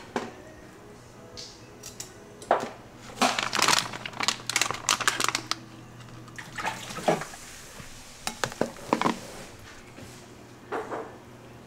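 Kitchen preparation sounds in scattered bursts: plates and dishes clattering and a plastic food pouch crinkling as kimchi is tipped out, over a steady low hum.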